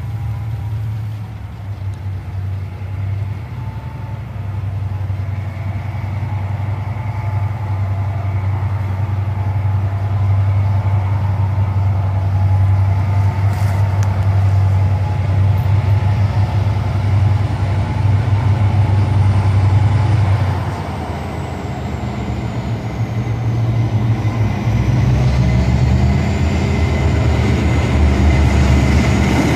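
Two GT22LC-2 diesel-electric locomotives approaching under load at the head of a heavy train, their engines a steady low drone. The sound dips briefly about two-thirds of the way in, then grows louder as they come close.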